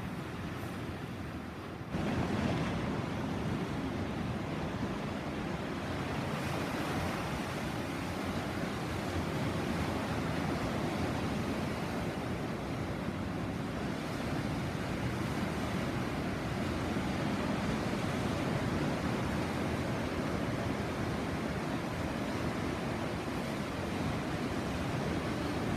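Caribbean sea surf washing steadily onto the shore, a continuous rush of waves. The level jumps up suddenly about two seconds in and then stays steady.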